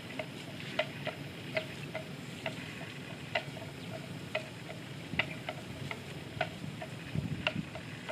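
Water buffalo grazing, tearing off mouthfuls of grass: a run of short, sharp tearing clicks, about two a second, over a low rustle.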